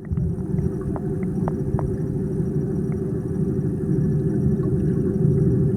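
Steady low churning rumble of a dog swimming pool's current (wave) generator running, with a few faint ticks over it.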